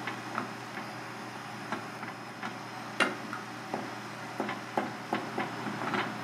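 Wooden spatula knocking and scraping against an aluminium saucepan while stirring milk: a string of irregular light clicks over a steady low hum, with one sharper knock about three seconds in.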